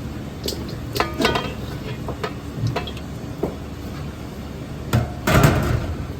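Metal kitchen utensils and pans clattering: a series of sharp knocks with brief ringing, then a louder, longer clatter about five seconds in, over a steady background hum.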